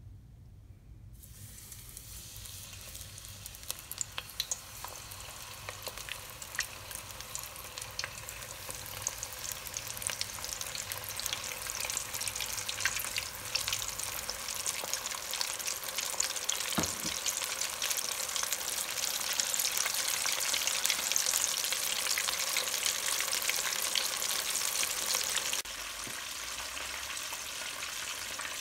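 Flour-dredged chicken drumsticks deep-frying in a pot of oil: a dense sizzle with many small crackles that starts about a second in and grows louder, then drops a little near the end.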